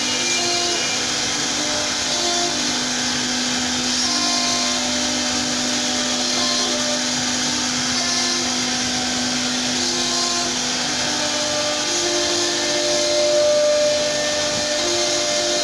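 Wood-carving CNC router running, with a steady whine and short tones that come and go, shifting in pitch.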